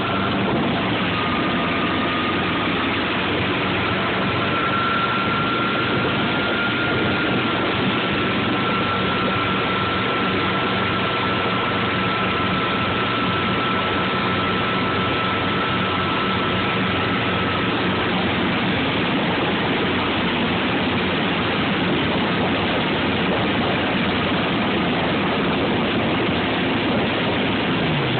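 Motorboat engine running steadily at towing speed under a constant rush of water from the wake. A thin high whine sits over it from about a second in until about eighteen seconds in.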